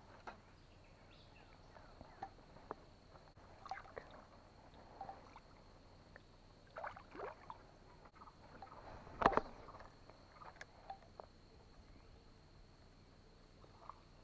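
Scattered light knocks and clatters in a jon boat, the loudest a single sharp thump about nine seconds in, over a faint steady high hum.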